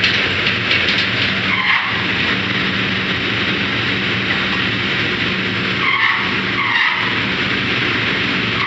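Oil drilling rig machinery running: a steady engine hum under a loud, noisy wash, with a few brief high squeals about two seconds in and twice near the end.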